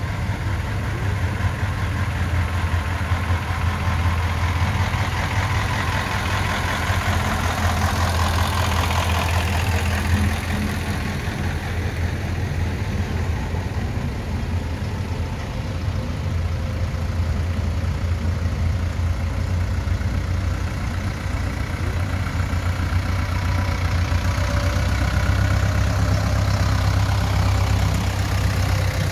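Tractor engines running at low speed as a line of tractors passes slowly, one after another, with a steady low hum. One passing tractor swells louder about a third of the way in, and a heavier, deeper pass comes near the end.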